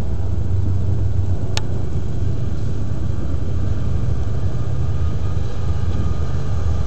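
Diesel locomotives of an approaching Norfolk Southern stack train rumbling low and steady, with a single sharp click about a second and a half in.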